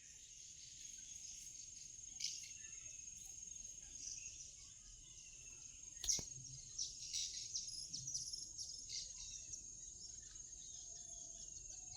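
Birds chirping in short, busy bursts over a steady high-pitched trill, with one sharp click about six seconds in.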